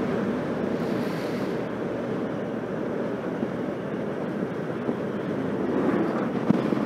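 Steady drone of a Suzuki GSF1250 Bandit's inline-four engine at road speed under wind rush, with one short knock near the end.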